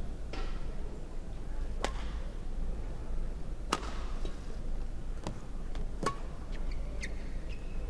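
Badminton rally: sharp cracks of rackets hitting the shuttlecock, about five of them a second or so apart, with brief squeaks of court shoes between them over a low steady hum.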